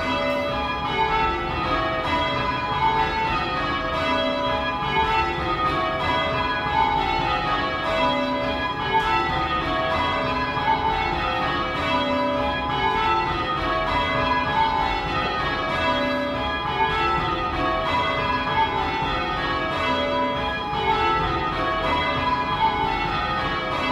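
Six cast iron church bells rung in rounds, heard up close in the bell chamber: the bells strike one after another in a row that falls in pitch from treble to tenor, and the row repeats roughly every two seconds, each stroke ringing on into the next.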